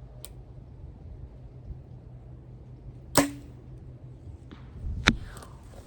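A PSE Mach 33 compound bow shot: a loud sharp release crack a little after halfway, with a brief low hum from the string, followed about two seconds later by a second sharp crack. Wind rumbles on the microphone throughout.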